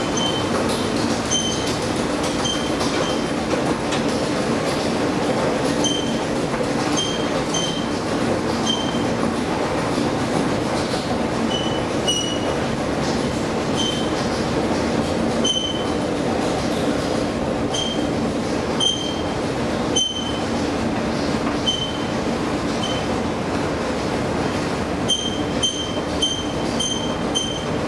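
Long metro-station escalator running while being ridden: a steady mechanical hum with short, high squeaks about once a second, which come in a quick run of five near the end.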